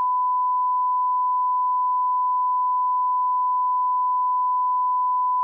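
A steady, unbroken 1 kHz sine test tone: the line-up reference tone placed at the head of a programme.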